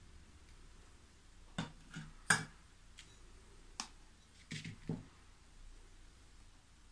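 Light knocks and clicks of kitchen utensils being handled: an immersion blender laid down on a spoon rest and a glass jar of thick spread picked up and moved on the table. About six in all, the sharpest a little after two seconds in, with two duller thuds near the end.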